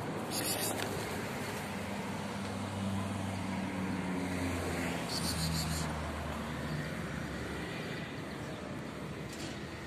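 Road traffic with a motor vehicle's engine hum, heard through the middle and fading out after about seven and a half seconds.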